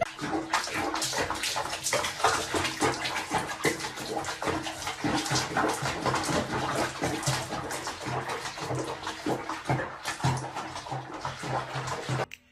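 Bathwater sloshing and splashing in a small basin as a wet cat moves about in it, a steady run of small splashes that cuts off suddenly near the end.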